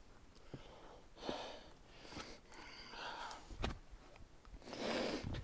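A hiker breathing hard: about four noisy breaths spaced a second or so apart, the last and loudest near the end, with a single dull thud a little past the middle.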